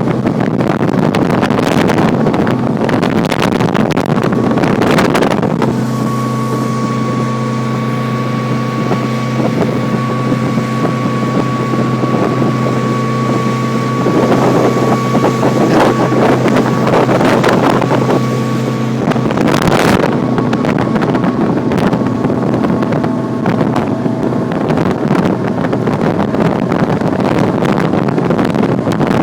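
Sea Ray motorboat under way: the engine runs steadily under rushing wind and water noise, with gusts buffeting the microphone. The engine's steady hum stands out most clearly through the middle part.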